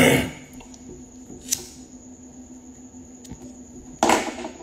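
Quiet room tone with a low steady hum, a brief noisy rush at the very start and a faint click about a second and a half in. Near the end comes a sharp breath that fades quickly, as a man takes a drag while smoking.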